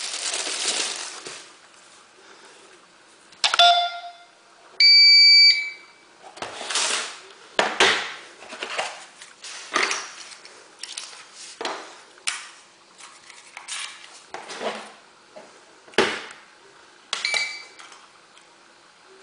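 GSM alarm system beeping: a loud, steady high beep of about a second, then a shorter beep of the same pitch near the end. Handling and rustling noises come and go throughout.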